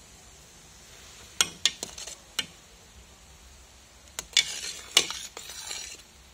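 A metal utensil stirring a pot of boiling milk mixture, clinking against the metal pot: a few sharp clinks about a second and a half in, then a quicker run of clinks and scraping about four seconds in.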